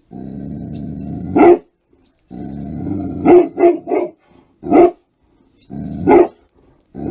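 Cane Corso growling low in long stretches, each growl breaking into deep barks, six barks in all.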